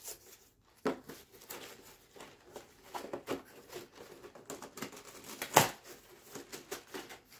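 Plastic blister packaging and its cardboard backing being picked at and pulled apart by hand: irregular crinkles and small clicks, with one sharp snap about five and a half seconds in.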